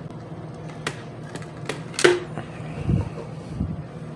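Clicks and knocks of hard plastic and tools being handled and set down on a desk, over a steady low hum. The loudest is a sharp click about two seconds in, followed by two duller knocks around the three-second mark.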